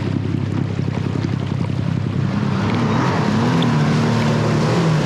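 Sailboat's inboard engine running at low speed while manoeuvring into a slip, with some wind on the microphone. From about two seconds in, a wavering higher note joins as the engine note shifts.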